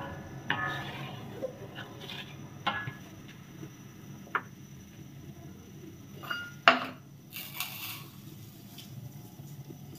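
Wooden spatula stirring and knocking against an aluminium wok as agar-agar strands dissolve in the water; a handful of sharp clinks, the loudest about two-thirds through with a short metallic ring, over a low steady hum.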